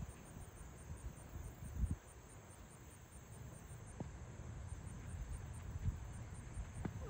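Insects chirping in a steady high-pitched pulse, about four chirps a second, over a low rumble, with two dull thumps about two and six seconds in.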